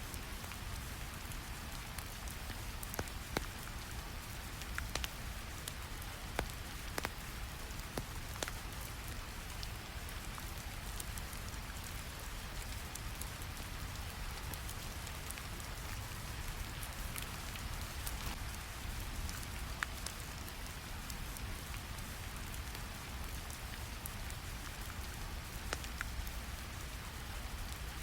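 Steady rain sound over a low rumbling brown-noise bed, with scattered sharp ticks and crackles throughout.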